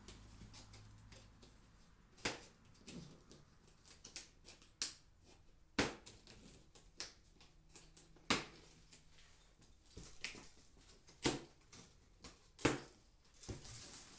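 Irregular sharp snaps and clicks, about six loud ones among many small ones, as plastic packing straps around a cardboard box are cut and pulled off.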